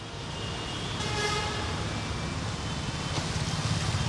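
Traffic noise from vehicles crawling through a waterlogged road, a steady low engine rumble, with a faint horn sounding about a second in.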